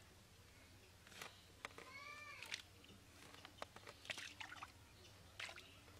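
Soil and roots in a mud hole being scraped and poked out by hand and stick: scattered faint scratches and clicks, the sharpest about four seconds in. About two seconds in comes one short, high call that rises then falls, like a cat's meow.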